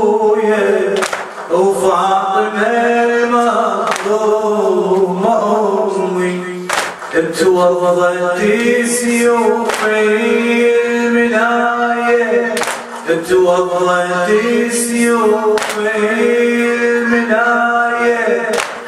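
A male radood chanting a Muharram latmiyya (Shia lament) unaccompanied into a microphone, in long held, wavering phrases. Sharp slaps land about every three seconds, the mourners' rhythmic chest-beating (latm).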